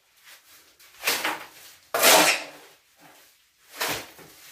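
Four short scraping knocks about a second apart, each starting sharply and fading quickly.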